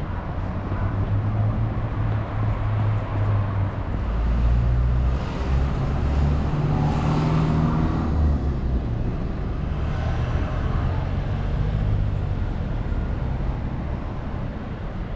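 Road traffic on a city street: a steady low rumble, with one vehicle passing close by and loudest about halfway through.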